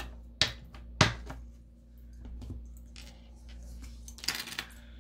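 Tarot cards handled on a wooden table: two sharp taps within the first second or so, the louder about a second in, then a short rustle as cards are spread out across the table near the end.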